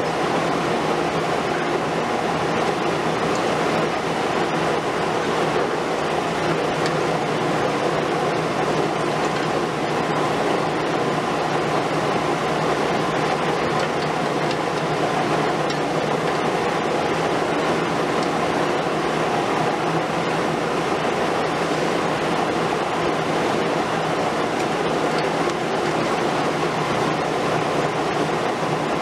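Heavy demolition excavators, chiefly a Liebherr R 950 Demolition long-front, working steadily: a continuous din of diesel engines under load and hydraulics, with a few faint crackles.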